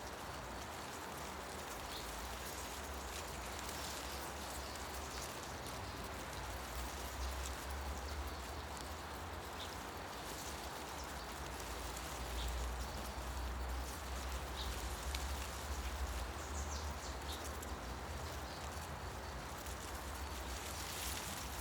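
Wind rustling through the leaves of forest trees as a steady hiss, with a low wind rumble that swells a little now and then, and a few faint, brief bird chirps scattered through.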